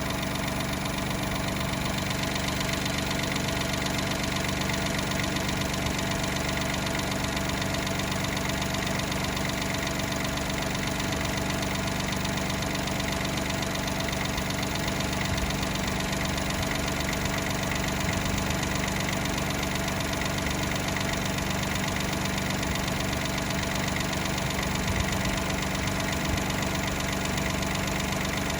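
Daihatsu Mira Custom (L275S) three-cylinder engine idling steadily, the car whose abnormal noise of unknown cause is being chased.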